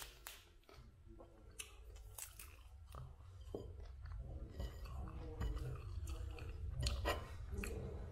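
Raw broccoli being chewed with crisp, crackling crunches at irregular moments, growing busier toward the end.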